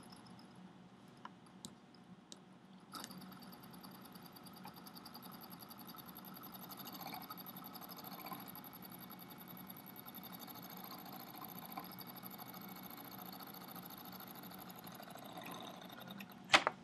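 Homemade simple electric motor, a coil of thin insulated copper wire spinning on paper-clip supports over a permanent magnet, giving a faint, steady, rapid buzzing rattle that starts about three seconds in. A sharp click near the end.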